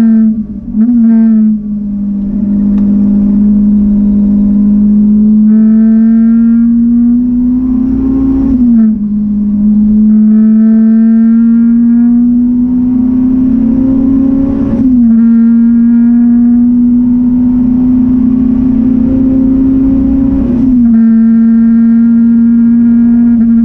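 Supercharged Honda S2000 four-cylinder engine under hard acceleration, heard from inside the cabin. The engine note climbs steadily through each gear and drops sharply at three upshifts, with a brief lift in level about a second in.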